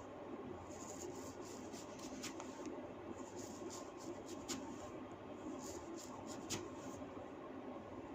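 Hands rubbing and tugging long hair against the scalp: soft scratchy rustling broken by several sharp cracks as strands are snapped tight (hair cracking), the loudest about halfway through and near two-thirds through.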